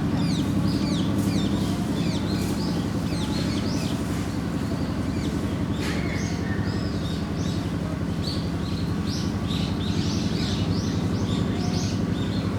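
A construction machine's engine running steadily, with many short, high bird chirps over it.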